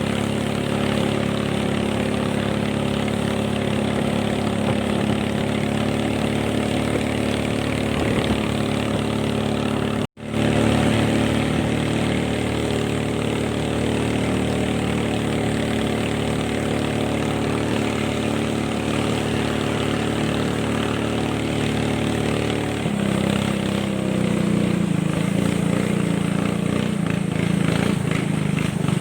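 Boat engine running steadily at speed, with the rush of wind and water beneath it. The sound cuts out for an instant about ten seconds in, and the engine note shifts a little past two-thirds of the way through.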